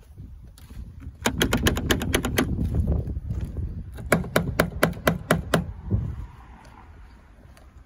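Two quick runs of sharp clicks over a low rumble. The first is fast, about ten a second, for about a second. The second is slower, about six a second, for about a second and a half.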